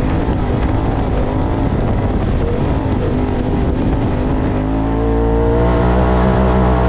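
Polaris RZR side-by-side's engine running at speed over sand, with wind and tyre noise; the revs climb, then hold steady from about two-thirds of the way through.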